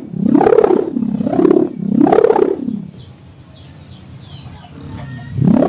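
Sendaren kite hummer, a bow strung with a 0.20 mm mica plastic ribbon, swung round by hand: a loud, pulsing drone that rises and falls in pitch with each of three swings, then stops about three seconds in. Swung by hand in light wind, it is not giving its full sound. Small birds chirp faintly afterwards.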